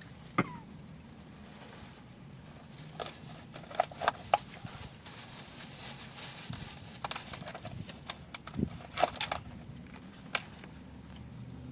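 Eating at a table: scattered clicks, taps and light crinkles from food and takeout containers being handled and eaten, coming in short clusters.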